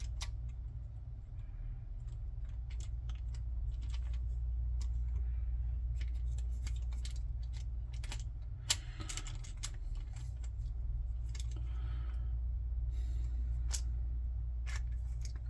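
Small metal parts of a Paclock 90A-Pro padlock being handled as it is taken apart: scattered light clicks and clinks, with one sharper click a little past halfway, over a steady low hum.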